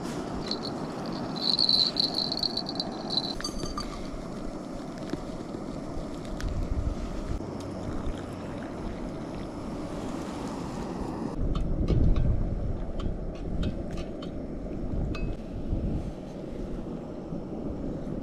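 Wind rushing over the microphone on open water. A thin high whine lasts a few seconds near the start, and a series of light clicks and knocks comes in the second half.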